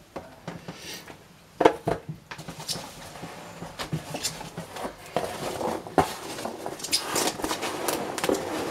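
Cardboard boxes and packing peanuts being handled: a couple of sharp knocks near two seconds in, then steady rustling and crinkling, with another sharp knock about six seconds in.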